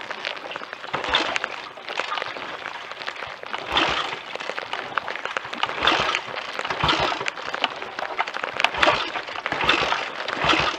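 Royal Enfield Continental GT 250 single-cylinder engine being kicked over repeatedly without firing: a series of irregular thuds and scuffing bursts, mixed with clothing rubbing on the chest-worn microphone.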